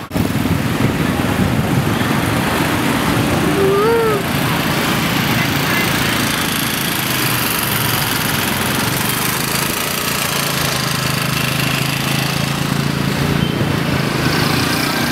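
Street traffic and a small engine heard from a moving vehicle: a loud, steady rushing noise, with a low engine drone that settles and holds steady from about ten seconds in.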